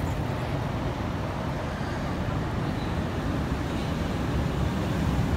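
City street traffic: cars passing on a busy road, a steady low rumble.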